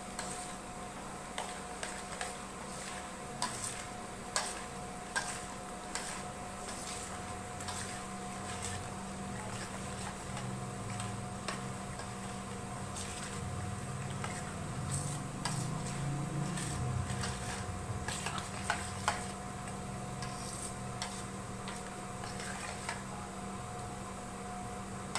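A metal spoon stirring a yogurt mixture in a steel bowl, with irregular clinks and scrapes against the bowl, over a steady low hum.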